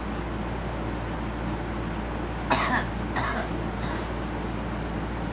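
A girl coughing: three coughs in quick succession about halfway through, the first the loudest, over a steady low hum.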